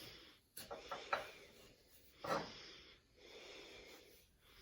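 A knife cutting through a candy apple's hard coating and the apple flesh: a few sharp crackles about half a second to a second in, a louder one about two seconds in, and soft rasping strokes between.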